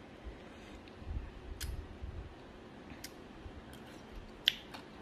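Quiet room with a few faint, scattered clicks of a metal spoon against a ceramic plate, the sharpest near the end.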